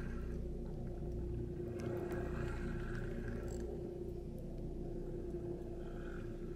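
A steady low motor hum with a constant pitch and a low rumble underneath.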